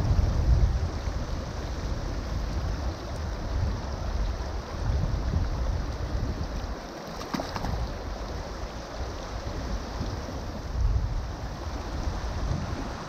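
Shallow river current running steadily, with wind buffeting the microphone in uneven low gusts. A brief splash about seven seconds in.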